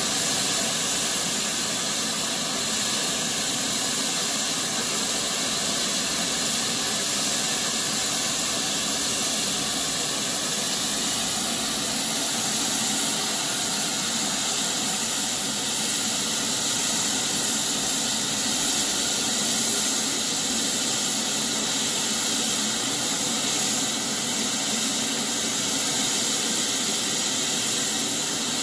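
Standing GWR Saint-class 4-6-0 steam locomotive No. 2999 giving a steady hiss of escaping steam, with no exhaust beats.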